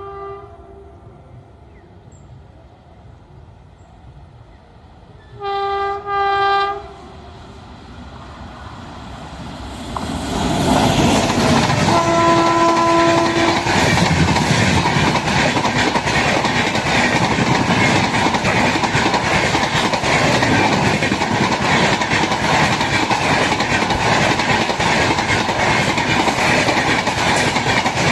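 Indian Railways train horn: a brief blast at the start, then two short blasts about five and a half seconds in. About ten seconds in, a train arrives and runs past loudly with rumble and rapid wheel clatter over the rail joints, and a lower-pitched horn sounds once for about a second and a half.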